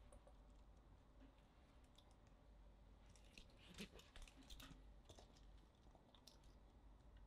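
Faint clicks and light taps as an Apple Magic Keyboard is handled and turned over in the hands, most of them bunched together in the middle.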